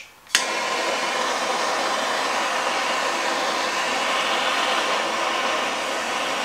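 MAPP gas hand torch lighting with a sharp pop about a third of a second in, then its flame hissing steadily as it heats a cast-iron engine block.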